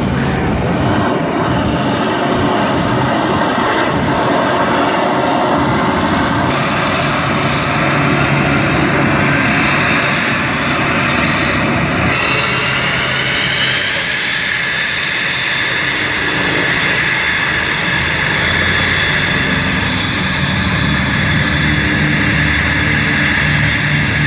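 F-16 fighter jet's engine running on the ground: a loud, steady roar with a high whine. About halfway through, the whine rises in pitch and then holds steady.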